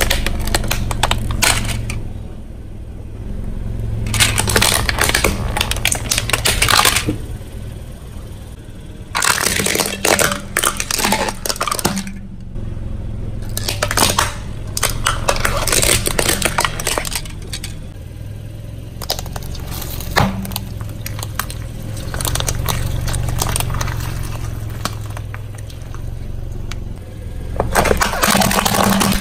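Car tyre rolling over plastic toy vehicles and plastic cups, crushing them in several bursts of cracking and snapping plastic, over the low steady hum of the car.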